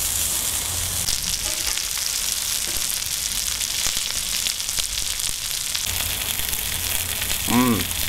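Burgers sizzling on a cast iron griddle over a charcoal fire: a steady frying hiss with fine crackles.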